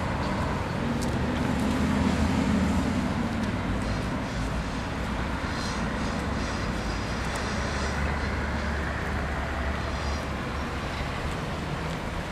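Road traffic crossing a railway level crossing: cars and a coach bus drive over the tracks, their engines and tyres making a steady rumble, with a deeper engine hum from the bus partway through.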